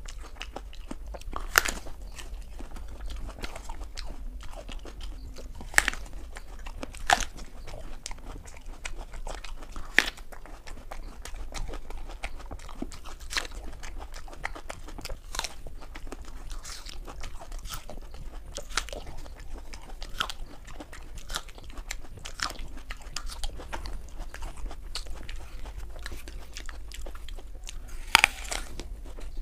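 Crisp raw apples being bitten and chewed: irregular sharp crunches of bites, several seconds apart, with chewing in between, the loudest bites about a second and a half in and near the end. A faint steady low hum lies underneath.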